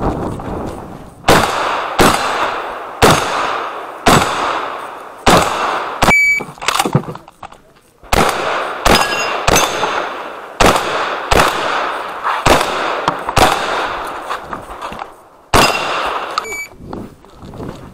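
Benelli M2 Speed 12-gauge semi-automatic shotgun firing a fast string of about fifteen shots, roughly one a second, each with a short echo. A few shots are followed by a brief metallic ring, as of steel targets being hit. There is a pause of about a second and a half about seven seconds in.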